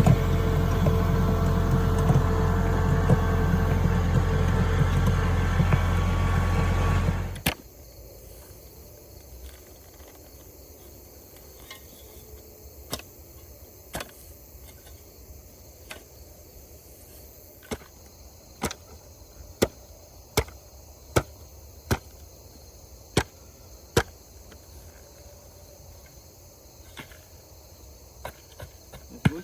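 An engine runs steadily, then cuts off suddenly about seven seconds in. After that, insects chirp steadily and a series of sharp single knocks comes roughly every second or two.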